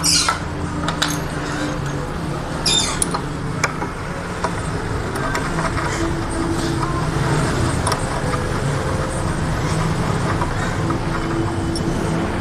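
Scattered small metal clicks and two brief scraping swishes from a bolt-on steel bracket and its fasteners being handled. Under them runs a steady low, engine-like hum.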